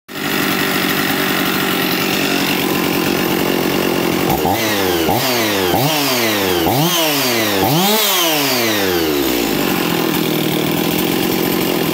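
Husqvarna 55 Rancher two-stroke chainsaw engine, with no bar or chain fitted, idling steadily, then blipped to high revs five times in quick succession, each rev dropping straight back, before settling to idle again. It runs nicely after a carburettor rebuild and a fix for the air leak at its plastic carb base.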